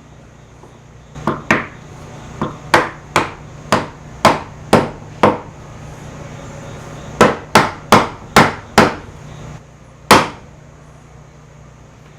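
A hammer tapping a hide-glued wooden joint together: sharp blows on wood, a quick run of about nine, a pause, five more, then one last hard blow.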